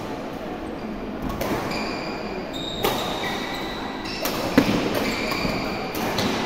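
Badminton rally: sharp racket strikes on the shuttlecock about every second and a half, with high squeaks of shoes on the court surface between them.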